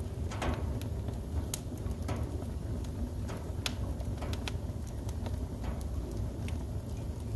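Wood fire burning in a fireplace: irregular sharp crackles and pops from the burning logs, a dozen or so scattered through, over a low steady rumble.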